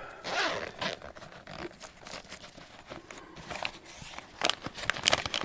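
A combat medical pack being opened and its contents handled: rustling and crinkling, with a run of sharper crackles near the end.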